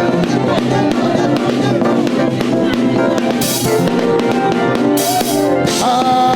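Live gospel praise band playing an upbeat groove between sung lines, drum kit with kick, snare and cymbal crashes over keyboard and bass; a voice comes in near the end.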